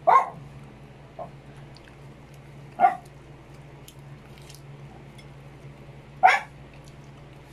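A dog barking: three short barks, about three seconds apart.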